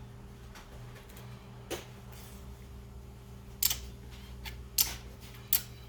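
Four short, sharp clicks of small objects being handled, spread across a few seconds, over a steady low hum.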